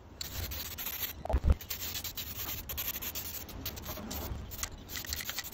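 Aerosol spray paint can hissing in uneven bursts as dark grey paint goes onto a plastic car console part, with one loud knock about a second and a half in.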